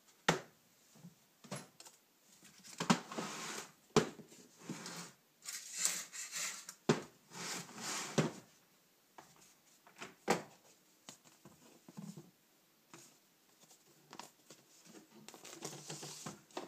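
Hands working on a motorcycle carburetor bank on a workbench: a series of sharp clicks and knocks of metal tools and carburetor parts being picked up, set down and worked, with second-long rustling stretches between them.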